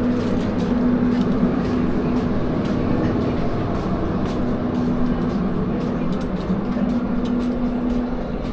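Standing passenger train's diesel engine running with a steady, even hum, with light rapid clicking over it.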